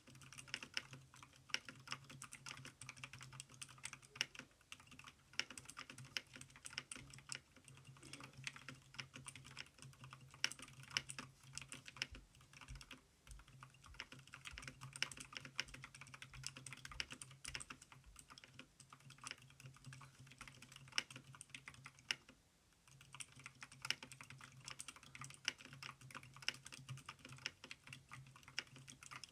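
Typing on a mechanical keyboard with blue clicky switches that are heavily over-lubricated and fitted with rubber O-rings: a steady stream of key clicks, pausing briefly about three-quarters of the way through.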